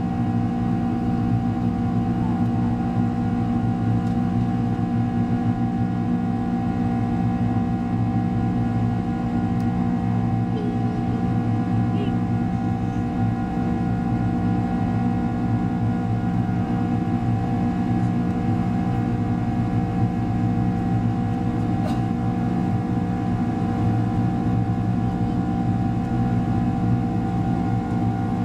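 Steady cabin drone of a Boeing 767-300's turbofan engines at climb power, mixed with airflow noise: a constant low rumble carrying several steady hum-like tones.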